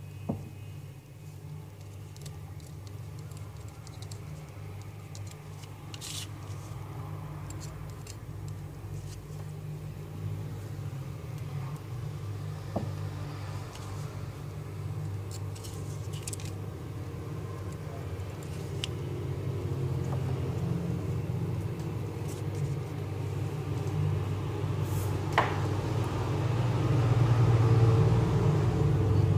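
Low, steady engine-like rumble that grows louder over the last third, with a few sharp clicks of metal tools against the circuit board.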